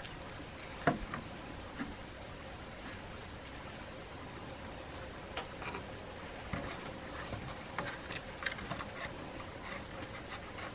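Steady high-pitched drone of insects, with scattered light clicks and snaps; the sharpest comes about a second in.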